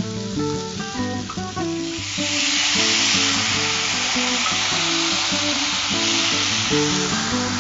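Cauliflower frying in a hot pan with onions and spices hisses and sizzles loudly as a handful of water is sprinkled over it, the sizzle swelling about two seconds in. The water is added to help the cauliflower cook through. Background music with plucked notes plays throughout.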